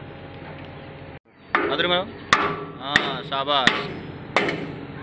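Heavy hammer striking steel on a rotary drilling rig's mast joint, about five sharp metallic blows with a brief ring after each, knocking out a steel pivot pin.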